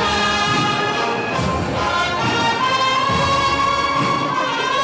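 Brass band playing a processional march, with long held notes over a low pulsing accompaniment.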